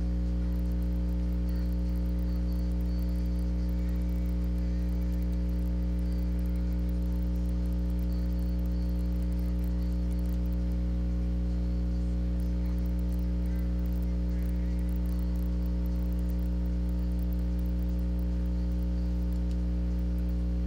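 Steady electrical mains hum: a constant low drone with a stack of overtones, unchanging throughout, over a faint high hiss.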